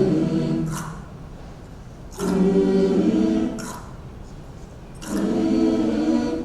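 Choir singing held chords in three short swelling phrases, each about a second and a half long, with a brief pause between them and a hissed 's' closing each phrase.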